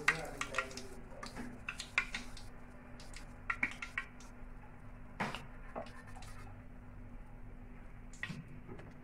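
Light metal clicks and taps of a wire frying strainer against an oily frying pan: a few small clinks in the first seconds, one louder knock about five seconds in and another near the end.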